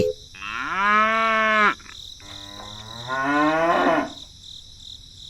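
A cow mooing twice: two long calls, the first rising in pitch and then held, the second about half a second after it. A steady high insect-like hiss runs underneath.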